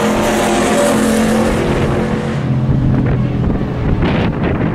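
Race pickup truck engines running, a steady engine drone with a rushing, wind-like hiss over the first half.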